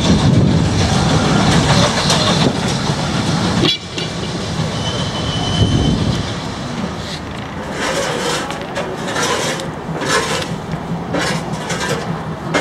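GWR 57xx pannier tank steam locomotive and its train passing. A loud rumble drops sharply about four seconds in and gives way to a clatter of wheels over rail joints.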